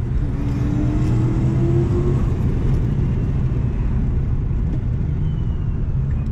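Turbocharged Toyota 1UZ-FE V8 heard from inside the car's cabin while driving, a steady low engine drone with a whine that rises slowly in pitch over the first two seconds.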